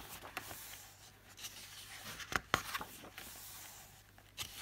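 Pages of a paperback colouring book being turned by hand: soft paper rustling and rubbing, with a couple of short, sharp paper snaps about halfway through.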